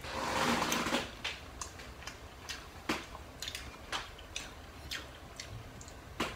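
Eating at a table: a metal fork clicking and tapping against a plate and a small rice bowl, about a dozen light clicks scattered irregularly, after a breathy noise in the first second.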